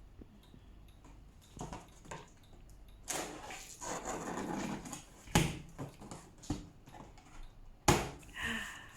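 Cardboard box and packaging of a new microwave oven being handled while it is unpacked: a stretch of rustling and scraping, then two sharp knocks, about five and a half and eight seconds in.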